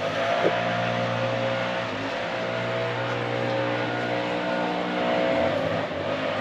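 An engine running steadily at an even speed, its pitch shifting slightly about five seconds in.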